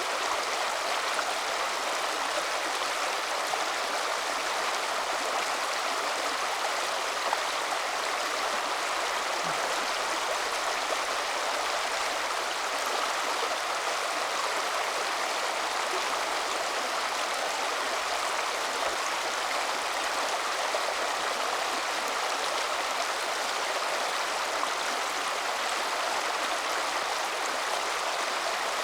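River water running, a steady, even rush.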